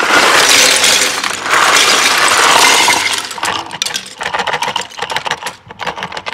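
Plastic LEGO bricks poured out onto a pile of bricks on a table: a dense clattering rush for about three seconds, then scattered clicks and clinks as the last pieces fall and settle.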